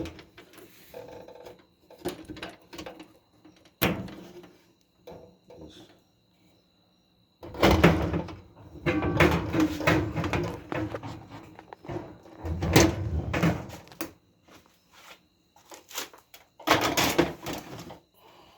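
Clunks, clicks and scraping of a dryer's sheet-metal parts and wiring being handled during disassembly, with a few louder stretches of clattering in the second half.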